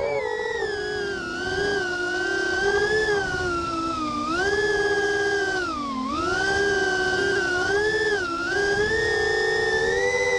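FPV racing quadcopter's brushless motors whining, heard from the quad's own camera, the pitch swooping up and down with the throttle. It dips lowest about six seconds in.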